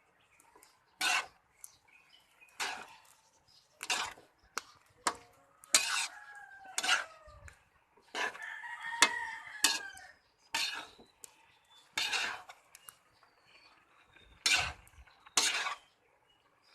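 A rooster crowing, with a longer crow about eight seconds in, over scattered sharp clinks of utensils on dishes.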